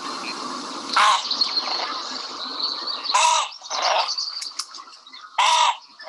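Great crested grebe calling: four short, loud calls over a steady background hiss.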